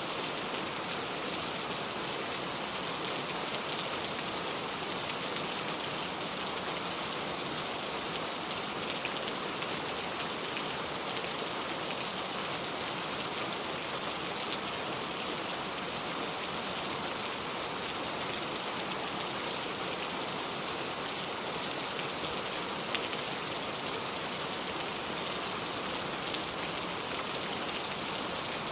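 Heavy, steady rain pouring, with a dense patter of drops hitting a surface.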